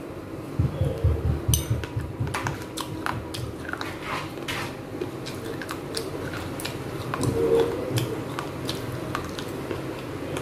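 Biting and chewing pieces of tiny clay pots close to the microphone: sharp crackling crunches, densest in the first half, over the low thumps of chewing.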